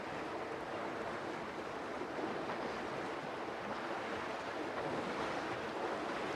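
Steady rushing and splashing of river water as a herd of elephants swims across a fast current.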